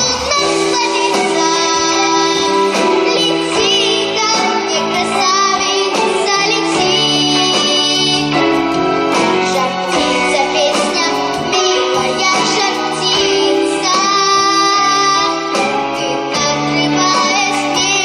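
A girl sings a pop song with vibrato over instrumental accompaniment.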